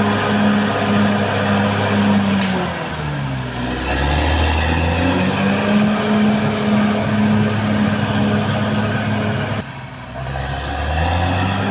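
Caterpillar D6R XL bulldozer's diesel engine working. Its pitch drops about two and a half seconds in and climbs back up a couple of seconds later, then falls away briefly near the end before picking up again.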